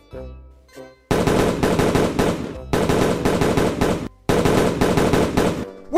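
Rapid handgun fire from two guns in three long strings of shots, starting about a second in, with brief breaks between them.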